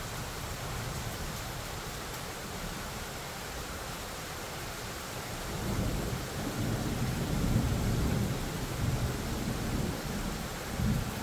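Steady rain hiss, then about halfway through a roll of thunder: a low rumble that swells and fades over about five seconds.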